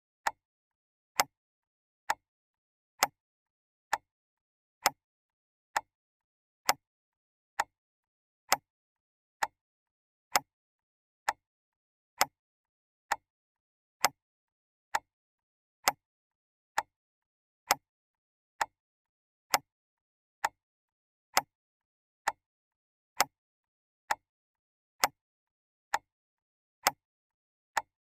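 Clock ticking steadily, a little under once a second, each tick a short sharp click with silence between.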